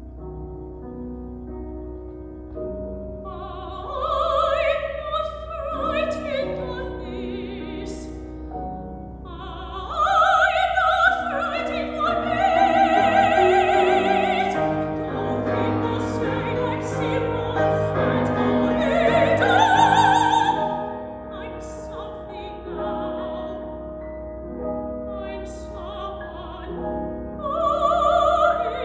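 A woman singing an operatic aria with wide vibrato, accompanied by grand piano. The piano plays alone for the first few seconds before the voice comes in; the voice falls quiet for a moment around eight seconds in, and the singing is softer for a stretch in the second half.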